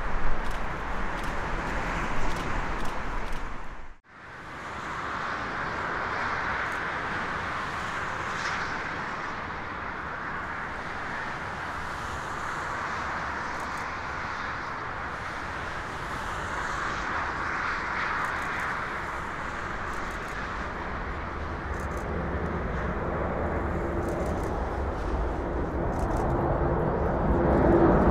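Jet engine noise of a Boeing C-17A Globemaster III's four turbofans: a C-17 rolling on the runway after landing, cut off abruptly about four seconds in, then another C-17 at takeoff power climbing out, a steady jet rumble and hiss that grows louder towards the end as it passes close, with a steady low tone joining in.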